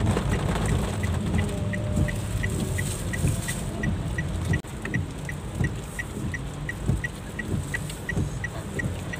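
A car's turn-signal indicator ticking evenly, about three ticks a second, over the steady rumble of the car driving in heavy rain, heard from inside the cabin.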